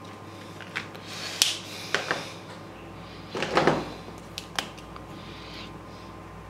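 Marker pens being capped, set down and picked up: a few sharp clicks and taps, with a short rustle about three and a half seconds in.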